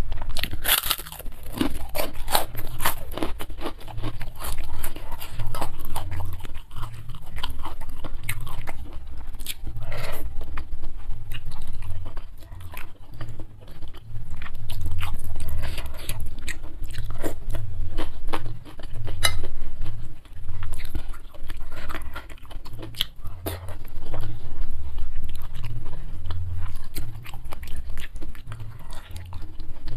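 Close-miked crunching and chewing of kerupuk crackers, the crackling densest in the first few seconds, then chewing with scattered clicks and low thuds through the rest.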